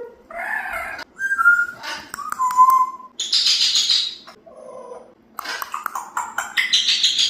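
African grey parrot vocalising a run of short, varied sounds: whistled notes about a second in, a raspy hiss in the middle, and clicky, raspy noises near the end.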